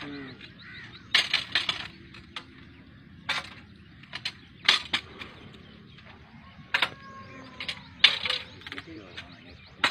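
Steel date-palm climbing frame clanking against the trunk as it is shifted up, sharp metallic knocks coming in irregular clusters about every second or two.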